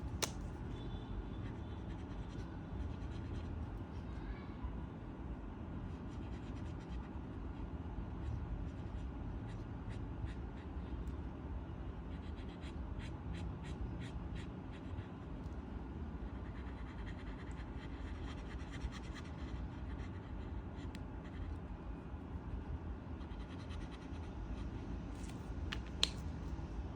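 A coloring pen scratching on paper in short strokes, heard as faint scattered ticks that bunch together in places, over a steady low hum.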